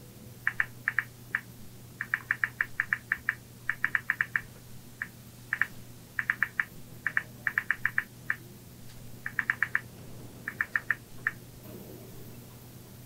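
Smartphone keyboard clicks as a text message is typed on the touchscreen, coming in quick runs of several taps with short pauses between words.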